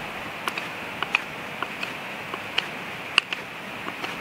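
Knife whittling wood by hand: a run of sharp, irregular snicks and clicks as the blade bites and shaves, over a steady hiss.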